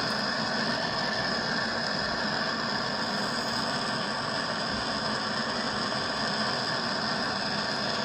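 Steady, unbroken machine noise, like a motor running without change.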